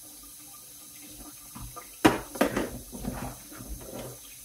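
Kitchen tap water splashing in a sink as plastic juicer parts are rinsed and scrubbed with a brush. About two seconds in, a part knocks sharply against the sink, followed by a couple of seconds of splashing and clatter.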